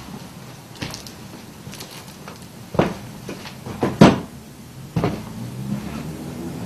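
A few separate knocks and bumps, like a door or cupboard being handled, the loudest about four seconds in.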